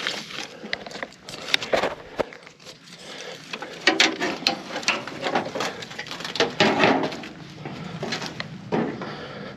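Close rustling and crunching of someone moving on foot through dry brush, with many scattered sharp clicks and snaps.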